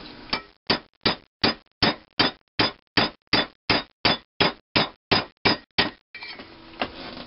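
Hammer tapping a steel drift rod, driving a sizing ball through a thin-wall bronze valve guide liner in an International Harvester engine's cylinder head to size its bore. About fifteen sharp, evenly spaced taps, nearly three a second, stop about six seconds in.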